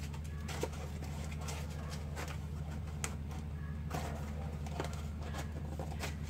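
Cardboard being handled and worked, with scattered light crackles, taps and rustles, over a steady low hum.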